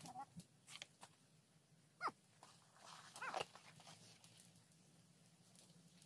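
Two short, high animal cries: a falling one about two seconds in, then a louder, wavering one a second later.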